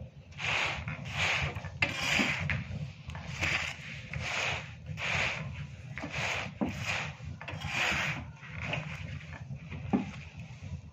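Repeated rasping strokes, rubbing or scraping, about one and a half a second in a steady rhythm.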